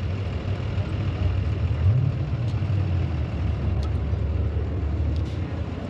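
A car engine idling with a steady low rumble, which swells briefly about two seconds in.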